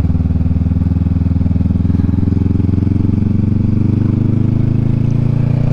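Honda Rebel 500's parallel-twin engine running steadily under way through a short aftermarket exhaust, heard loud from the rider's position.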